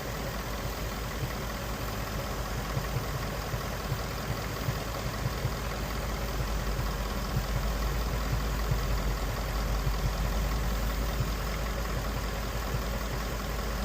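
Ford 5.0 Coyote V8 idling steadily, an engine with a cylinder 2 misfire (codes P0302 and P0316) that is being diagnosed.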